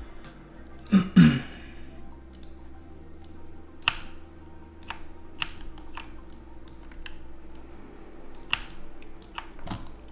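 Scattered single clicks of a computer keyboard and mouse, roughly one every second or two, over a faint steady hum.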